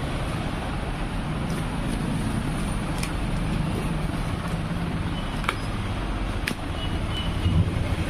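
Steady low background rumble, with a few short sharp clicks and scrapes as a cardboard parcel box is cut open with a box cutter.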